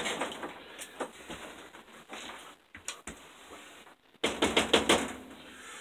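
Hand tools working at a switch box: scattered light clicks and taps, then a quick run of sharp taps about four seconds in.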